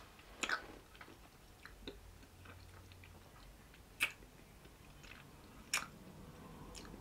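Mouth sounds of a person eating ice cream from a metal spoon: three sharp wet smacks or clicks, about half a second in, at four seconds and near six seconds, with a few fainter ones between.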